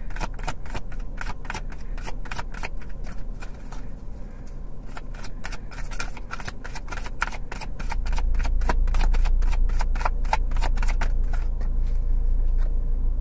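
Tarot deck being shuffled by hand: a quick run of card clicks, several a second, thinning out briefly around four seconds in. A low rumble joins about eight seconds in.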